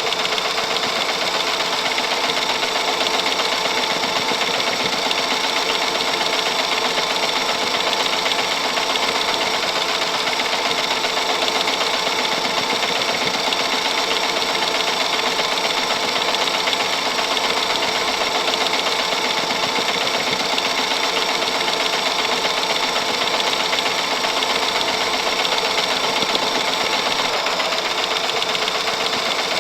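Film camera reel mechanism running steadily, a continuous fast mechanical chatter that holds even throughout.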